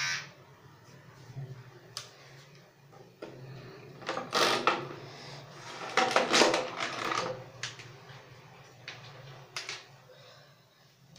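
An electric hair clipper's buzz cuts off at the very start. Then come scattered sharp clicks and two short bursts of clattering, rustling handling noise, the second about six seconds in.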